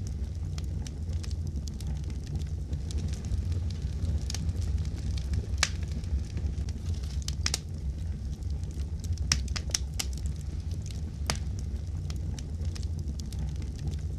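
Fireplace fire crackling: a steady low rumble with irregular sharp pops and snaps scattered throughout.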